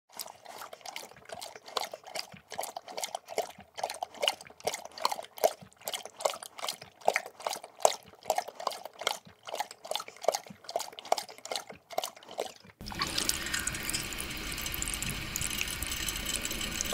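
A boxer dog drinks water from a plastic water bottle, with quick wet slurps and gulps at about three a second. About three-quarters of the way through, these give way to the steady hiss of a drinking fountain's running water stream.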